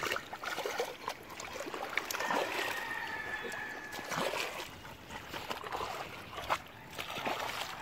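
Shallow seawater splashing and trickling as a bullmastiff is washed by hand, with scattered small splashes.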